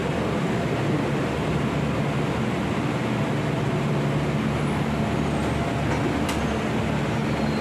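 Tobu Revaty limited express train running: a steady rumbling noise with a low hum underneath, and a brief click about six seconds in.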